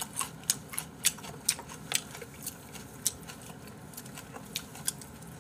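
Scattered sharp clicks and light taps of eating and handling food at a table, about two or three a second, irregular.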